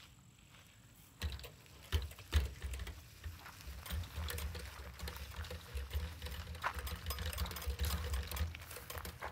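Wooden-framed chicken tractor being rolled on its two rubber wheels over grass and gravel: a low rumble with a stream of irregular rattling and clicking from the moving frame, starting about a second in.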